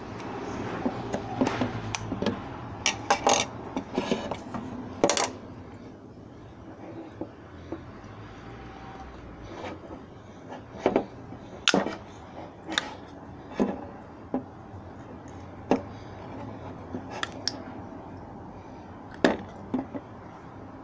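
Screwdriver tip prying at the plastic clips of a Wilo boiler circulation pump's terminal box, giving irregular sharp clicks, taps and scrapes against the plastic cover and metal pump body.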